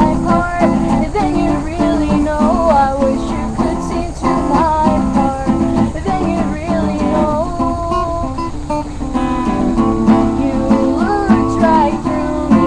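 Acoustic guitar strummed in a steady rhythm while a woman sings a melody over it.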